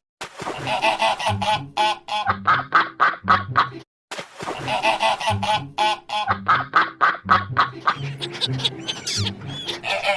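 Ducks quacking in rapid, repeated runs of short harsh calls, cutting out briefly about four seconds in.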